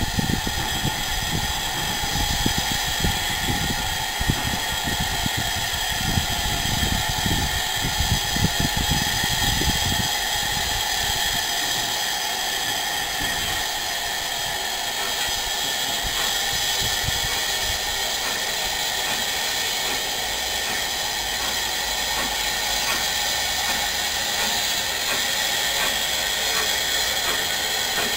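Steam locomotives standing in steam, giving off a steady hiss of escaping steam. Irregular low rumbling runs under it for the first ten seconds or so.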